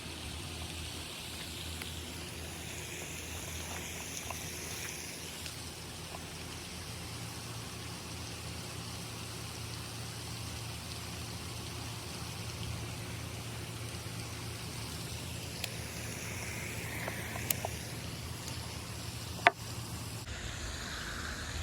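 Outdoor background noise: a steady low hum, like distant traffic, under a faint hiss, with a few small clicks and one sharper click near the end.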